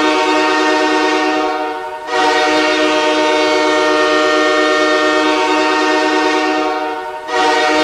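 Ice hockey goal horn sounding a loud, multi-note chord in long held blasts. The sound briefly dips and resumes about two seconds in and again near the end.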